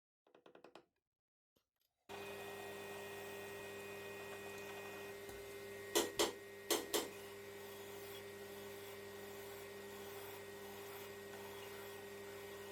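Steady electric motor hum of a workshop machine, most likely the lathe, starting abruptly about two seconds in. Two pairs of sharp metallic clicks come about six seconds in.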